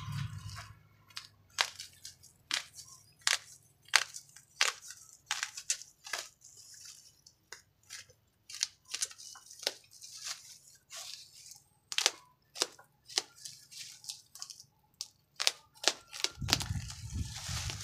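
Utility knife slicing through plastic bubble-wrap and packing tape on a parcel, the plastic giving irregular sharp crackles and snaps, about one to three a second.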